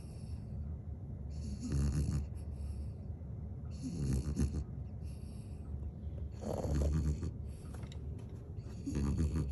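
Shih Tzu–Bichon mix dog snoring in its sleep: a rasping snore about every two and a half seconds, four times, each with a shorter, softer breath after it.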